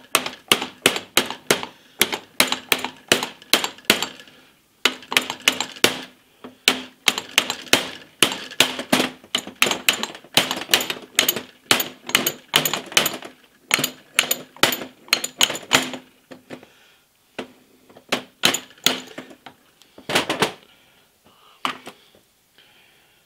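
Soft-faced mallet tapping on a Hardinge lathe collet closer assembly: quick, even blows about three to four a second, a short break about four seconds in, then slower scattered taps that stop near the end.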